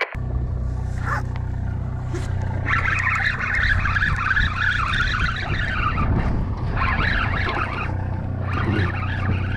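A boat engine's steady low hum. Over it, from about three seconds in, seabirds call in wavering, squawking runs that stop briefly twice and come back near the end.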